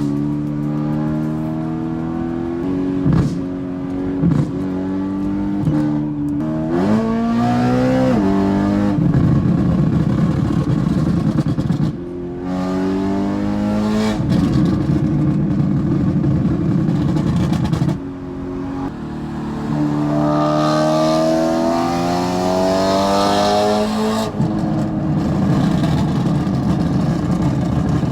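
BMW E92 M3's 4.0-litre V8, breathing through a near-straight-piped Akrapovic exhaust, revving up under hard acceleration several times, with short dips as the throttle lifts or the gearbox shifts. Between the pulls the exhaust crackles and pops on the overrun, the sign of the Gintani tune.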